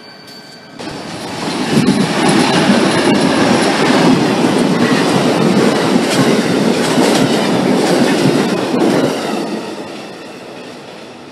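Amtrak Lake Shore Limited passenger train passing at speed: a loud rush of wheels on rail with quick clicking over the rail joints. It swells in about a second in and fades away over the last couple of seconds.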